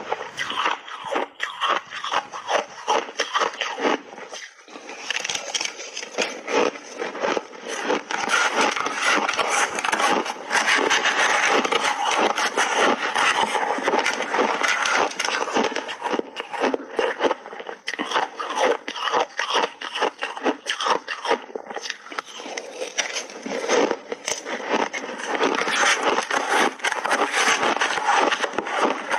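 Close-miked crunching of refrozen ice, chewed in big bites, with a metal spoon scraping and breaking up the ice in a plastic tub. The crackling is dense and nearly continuous, with a short lull about four seconds in.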